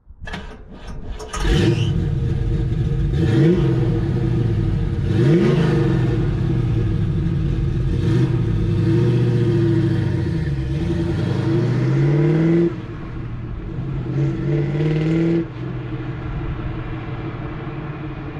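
1969 Chevrolet Nova SS's 350 small-block V8 revving and accelerating away, its pitch climbing and falling again and again through the gears. Near the end it drops, climbs briefly once more, then settles to a lower steady note.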